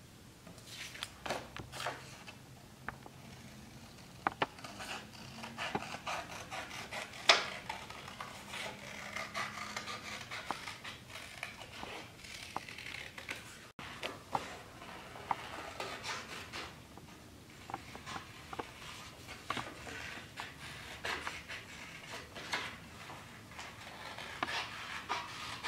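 Scissors snipping through construction paper as shapes are cut out, with the paper crinkling and rustling: irregular small clicks and rubbing throughout.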